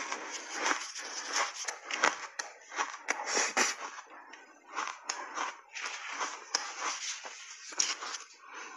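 Ice chunks coated in milk powder being crunched and chewed in the mouth: a dense, irregular run of crisp cracks and crunches, with a new bite near the end.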